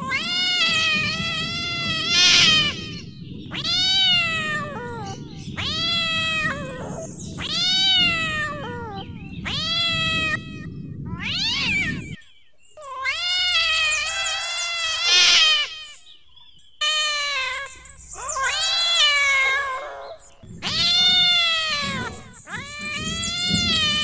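Domestic cat meowing loudly over and over: drawn-out meows about a second long, each rising and then falling in pitch, coming one after another with short pauses. A low background rumble runs beneath the meows until about halfway through, then stops.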